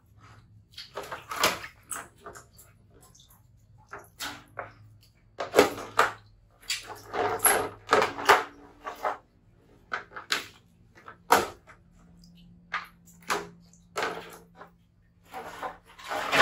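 A wet baby monkey being washed by hand on a plastic stool: a string of short, irregular splashing, rubbing and knocking noises.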